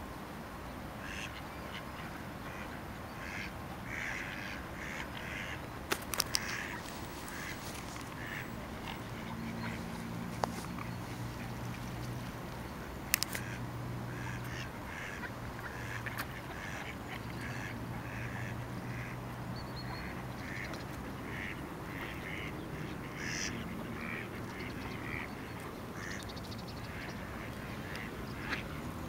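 Mallard ducks quacking again and again in short calls, with a few sharp clicks that stand out about six and thirteen seconds in, and a faint low drone through the middle.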